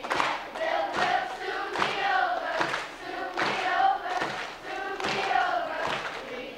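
Children's choir singing a song, with a steady beat of short thumps under the voices.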